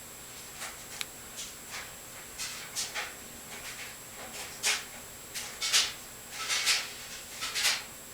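Lock pick and tension wrench working the pin stacks of a Master Lock No. 150 padlock: a dozen or so short, irregular scratchy clicks and scrapes, loudest about six to seven seconds in. The plug is in a false set held by the lock's security pins.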